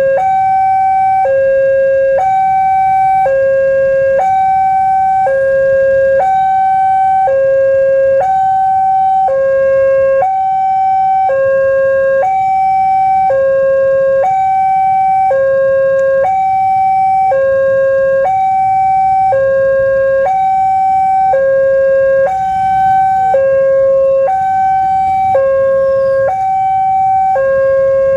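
Railway level-crossing warning alarm sounding a steady two-tone pattern, a lower and a higher electronic tone alternating about once a second, with a low rumble beneath.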